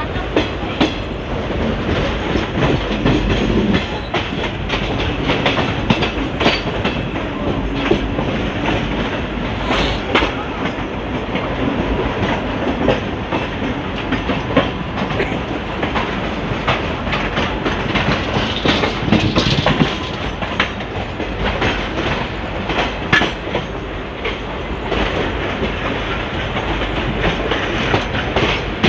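ICF passenger coach running along the track, heard from a window seat: a steady rumble of wheels on rail with irregular clicks and clacks as the wheels pass rail joints and points.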